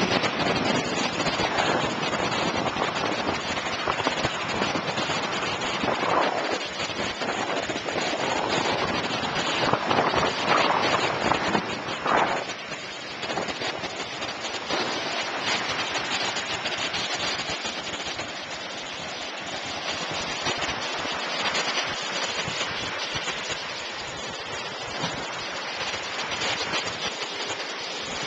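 Small waves washing onto a lake beach, a steady rushing noise that swells louder for several seconds, mixed with wind on the microphone.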